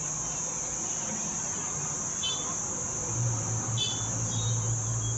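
Crickets trilling steadily at a high pitch, with a low hum joining about three seconds in.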